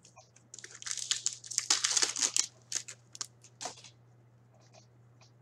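A hockey card pack's wrapper crinkling as it is torn open: a dense run of rustling for about three seconds, then a few faint clicks of cards being handled.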